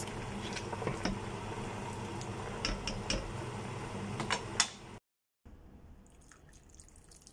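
Pork-bone soup bubbling at a boil in a metal pot, with a ladle stirring and clicking now and then against the pot. About five seconds in the sound cuts off, then comes back much quieter with faint drips as the ladle pours soup into a bowl.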